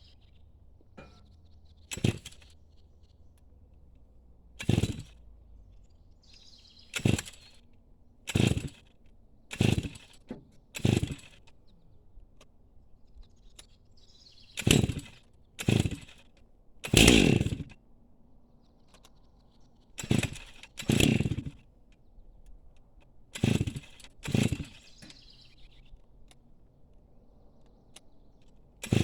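A hammer striking wedges, about fourteen single sharp blows with a short ring, spaced a second or more apart in small groups. The wedges are being driven into the log to hold the saw cut open during chainsaw milling.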